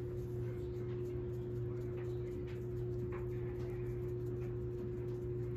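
Steady background hum with one constant tone. Over it come a few faint, soft taps as a foam brush dabs watercolor onto a leaf.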